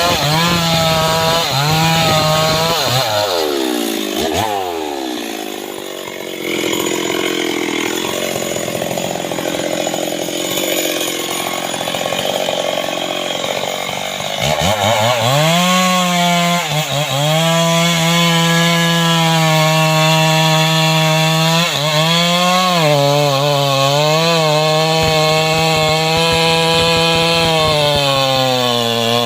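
Two-stroke STIHL MS 381 chainsaw at full throttle; about three seconds in the revs fall away and it runs low for several seconds, then it is revved back up about halfway through and held high through the wood, the pitch dipping and recovering as the cut loads it.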